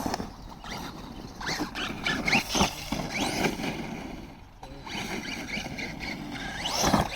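Electric motor of a Rival MT10 RC monster truck whining up in several short throttle bursts, each rising in pitch, with a few sharp knocks as the truck flips and lands.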